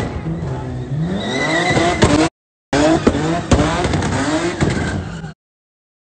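Nissan 350Z's V6 revving up and down with squealing tyres as it spins donuts, with a few sharp pops. The sound drops out briefly after about two seconds and stops abruptly about a second before the end.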